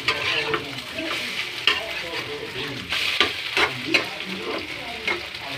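Beaten eggs sizzling in a metal frying pan while a metal spoon stirs and scrapes them, clicking and tapping against the pan several times.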